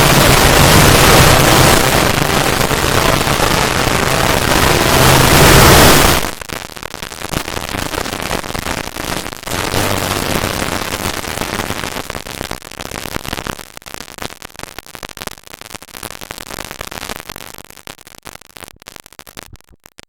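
Loud harsh static-like noise that cuts off abruptly about six seconds in, giving way to a quieter crackle of many small clicks that thins out toward the end.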